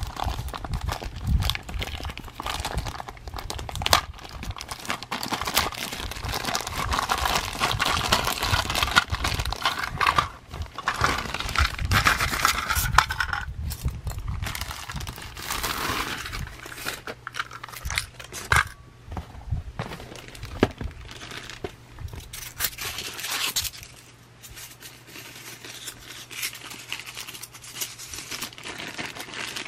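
Thin plastic packaging bag crinkling and rustling as it is pulled off plastic toy train cars, with scattered sharp clicks and knocks of handling; quieter in the last few seconds.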